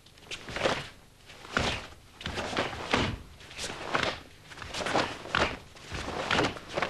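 Two karateka working through a paired kumite form: a run of eight or so short swishes and thuds, about one or two a second, as gi sleeves snap on strikes and blocks and bare feet step and stamp on the mat.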